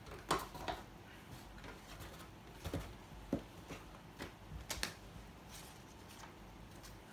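Paper manuals and cardboard packaging handled by hand: rustling with a scattering of light taps and clicks, the sharpest about a third of a second in and several more over the next few seconds.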